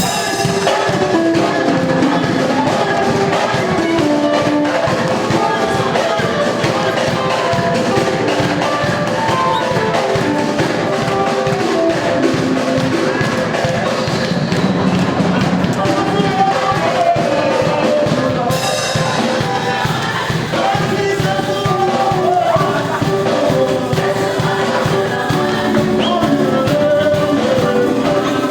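A live band playing with a drum-kit beat and melodic instruments, with a voice singing at times.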